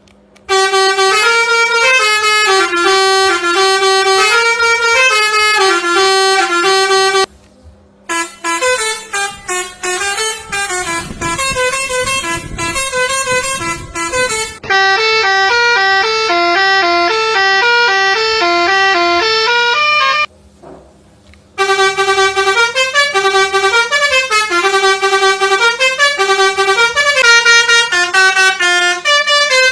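Telolet horn, a multi-trumpet bus and truck air horn, playing jingling tunes note by note. It plays in three runs, stopping briefly about seven seconds in and again about twenty seconds in.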